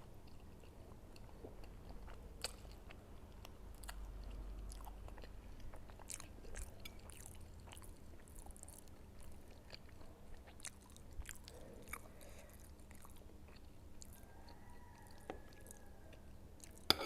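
A person chewing soft siomay dumplings and noodles close to the microphone: quiet, irregular wet mouth clicks and smacks.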